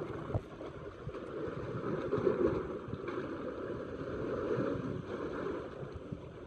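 Wind and choppy sea water make a steady rushing noise that swells a little about two seconds in.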